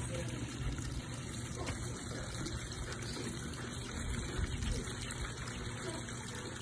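Small tiered garden fountain with water trickling and splashing steadily into its bowls.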